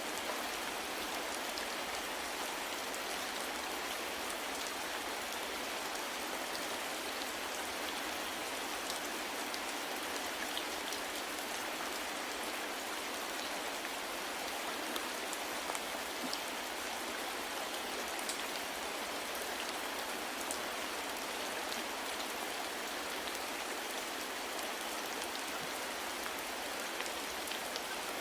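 Steady soft rainfall: an even hiss of rain with scattered individual drops pattering on a surface.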